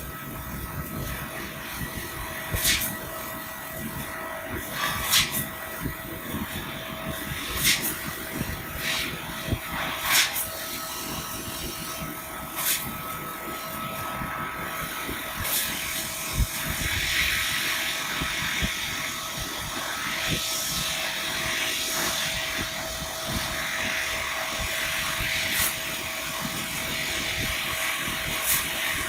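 EFC3015 laser cutting machine cutting 2 mm aluminium sheet: a steady hiss under a faint constant hum, with a sharp pop roughly every two and a half seconds for the first half. The hiss grows fuller in the later part.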